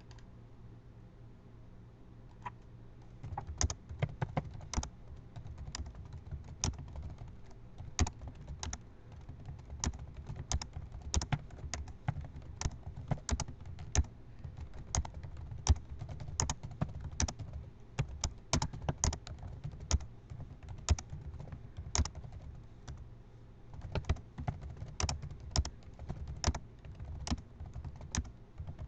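Computer keyboard being typed on fast and continuously: a few single key presses, then from about three seconds in a dense, uneven run of key clicks.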